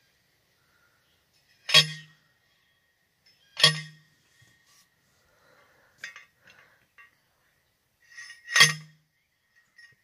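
Three sharp metallic clinks of metal being struck: two about two seconds apart, the third some five seconds later, with a few faint taps in between.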